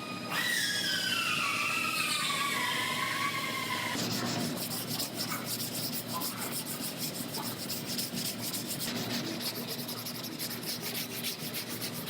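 Sanding on a car's body work: a tool's whine falls in pitch over the first few seconds, then quick, steady sanding strokes follow.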